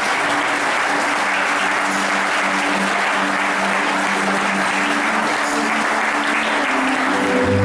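A crowd of guests applauding steadily, with soft music playing underneath.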